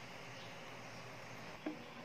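One short, light knock on a plate about one and a half seconds in, over a faint steady hiss.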